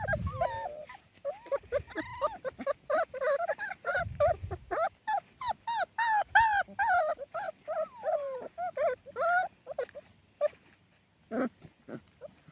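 Puppies whimpering and yipping: many short high calls one after another that die away about ten seconds in, followed by a few soft knocks.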